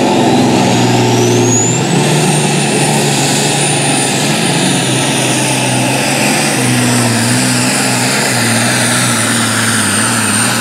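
Super modified pulling tractor's twin-turbocharged engine running at full throttle as it drags the weight sled down the track, with a high whine that rises over the first two seconds and then holds steady.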